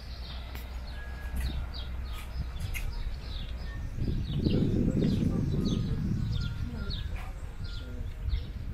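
Small birds chirping again and again in short, quick, falling notes, over low background street noise that swells for about two seconds near the middle.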